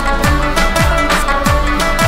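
Background music with a steady beat and deep bass drum hits that drop in pitch, over sustained instrumental tones.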